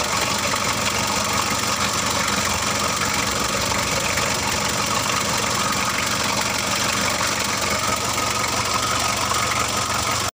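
Freshly overhauled Mitsubishi L300 four-cylinder diesel engine idling steadily with its valve cover off.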